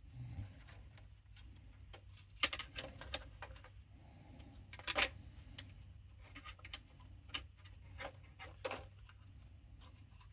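Scattered light clicks and taps of small plastic and metal mixer parts being handled and fitted back together, the two loudest about a quarter of the way in and halfway through. A faint steady low hum runs underneath.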